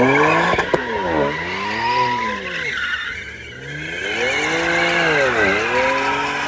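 Twin-turbo BMW coupe drifting, its engine revving up and down as the driver works the throttle, with the rear tyres squealing and skidding as they spin. The engine pitch drops sharply and climbs back about a second in and again near the end.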